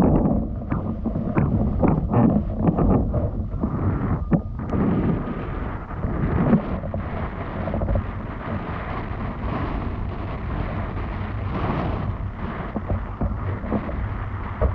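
Wind buffeting the microphone while windfoiling: a steady, heavy low rumble with irregular knocks and gusts, busiest in the first few seconds.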